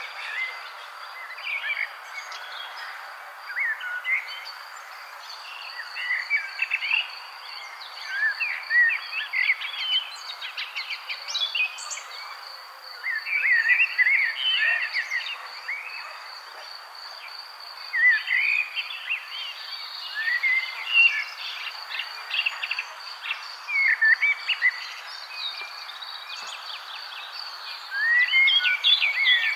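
Birds chirping in many short, quick calls over a steady high insect trill, a nature-sounds ambience.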